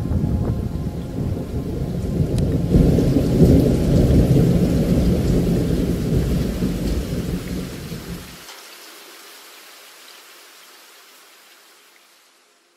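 Thunderstorm recording laid on the soundtrack: rain hiss with a long rolling thunder rumble that swells about three seconds in. The rumble stops abruptly after about eight seconds and the rain fades out to silence just before the end.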